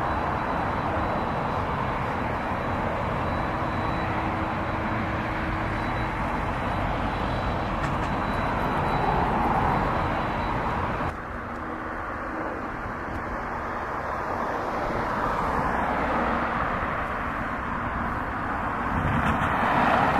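Boeing 767-300 airliner's twin jet engines at taxi power: a steady rush with a faint high whine. The sound drops abruptly about eleven seconds in, then slowly swells again.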